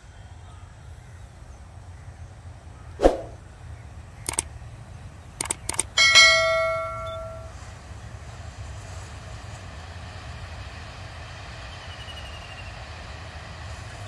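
A few sharp metallic clicks, then a single clang of struck metal about six seconds in that rings with a clear tone for about a second and a half, over a steady low background hum.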